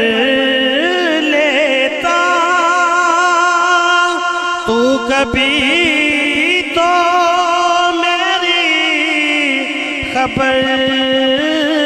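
A man's voice singing a naat through a microphone and PA, in long held, melismatic notes that waver and glide between pitches.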